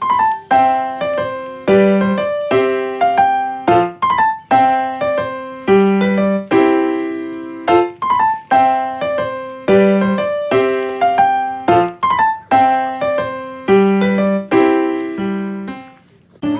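Background music: a light piano tune in a steady, repeating rhythm.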